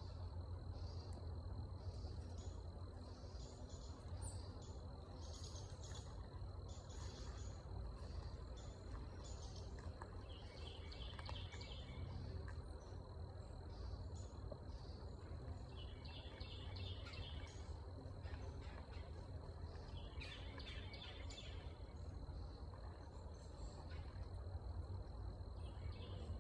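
Outdoor nature ambience: small birds chirping on and off, with a short trilled call three times, over a steady high insect drone and a low steady rumble.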